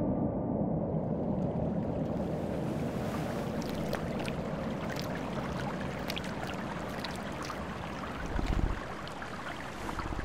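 Water ambience: a steady soft wash of lapping water with many small drips and splashes, and a brief low swell about eight and a half seconds in.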